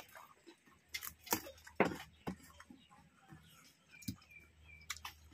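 Quiet eating sounds: a handful of sharp mouth clicks and smacks while chewing a mouthful of rice and small fish eaten by hand, with fingers working the rice on a steel plate.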